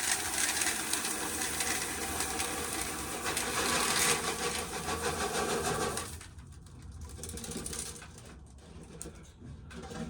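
Dense rattling of dry corn kernels for about six seconds, then dropping to scattered clicks.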